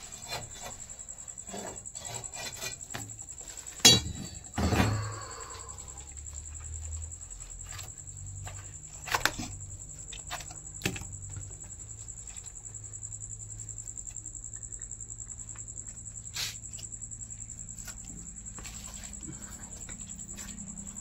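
Crickets trilling steadily at night, with a few sharp knocks and scrapes of a metal snake hook probing a crack in a brick wall; the loudest knock comes about four seconds in.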